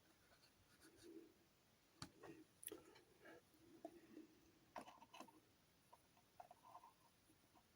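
Faint, scattered clicks and light taps of small miniature figures being handled and set down on a tabletop, with a little soft rustling.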